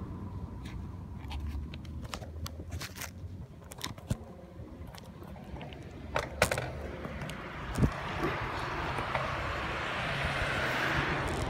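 Bicycle rolling over a paved path: a steady low rumble with scattered rattles and sharp clicks from the bike. From about halfway, the tyre noise of a passing car grows louder and is strongest near the end.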